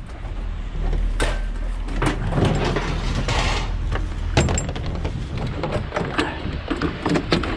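Clattering and knocking of hard junk items being handled and shifted, with several sharp knocks and clicks over a rattling, rustling noise.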